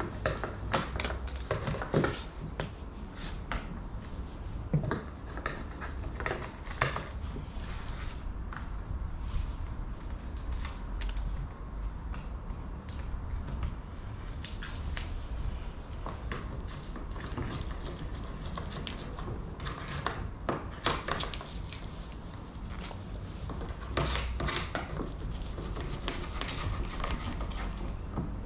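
Scraping, crinkling and tearing of glazing tape on a uPVC door frame as the old tape is stripped from the glazing rebate and new tape is put in, with many short irregular clicks and scratches from the hand tool.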